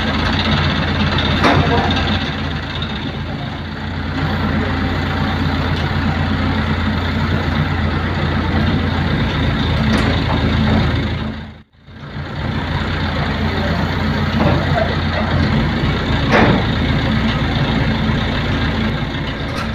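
Diesel engine of an ACE mobile crane running steadily while it holds a load on its hook. It cuts out for a moment a little past the middle.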